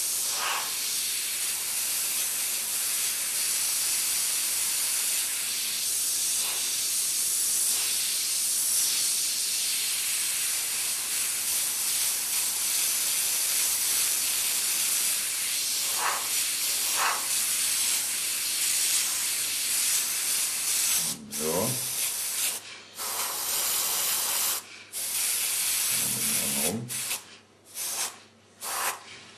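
Airbrush spraying paint: a steady hiss of air and paint from the nozzle. About two-thirds of the way through, the hiss breaks into short bursts that cut on and off abruptly.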